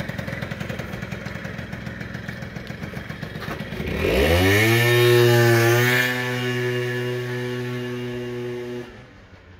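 Piaggio Quartz's 50cc two-stroke scooter engine running at a fast rattling idle, then about four seconds in revving up sharply and holding at steady high revs before cutting off abruptly near the end. It takes the throttle cleanly, its air-filter-box gasket freshly replaced with a foam seal to stop it drawing false air.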